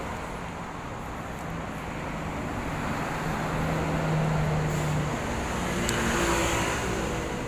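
Road traffic: a steady rumble of passing vehicles, with a low engine hum swelling from about three to five seconds in.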